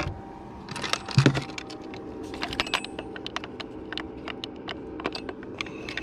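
Irregular small plastic and metal clicks and rattles as a fish lip-grip and hanging scale are picked up and handled on a boat, with one louder knock about a second in and a steady faint hum underneath.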